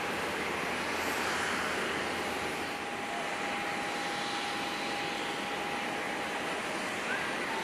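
Boeing 777 jet engines at taxi power: a steady whine over an even rushing noise.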